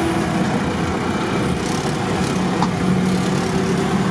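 Off-road vehicle's engine running at low speed, heard from inside the cab as the vehicle creeps along a sandy track; a steady low drone.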